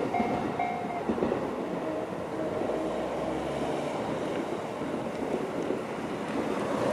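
Electronic level-crossing alarm in the JR standard tone, ringing in a steady repeating pattern that stops about a second in. A JR 211-series electric train runs on over the rails with a clickety-clack rumble.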